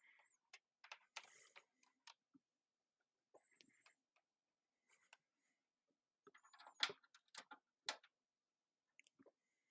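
Near silence with a few faint clicks and taps; three sharper clicks come about seven to eight seconds in.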